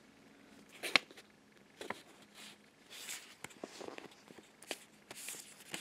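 Cardboard and paper being handled: scattered light taps and short rustles as a cardboard cutout is slid over a printed sheet, the sharpest tap about a second in.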